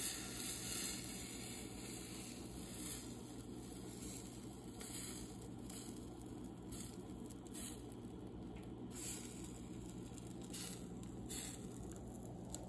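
Pancake batter sizzling in a hot frying pan on a gas stove as it is poured in, with faint irregular crackles over a low steady hum.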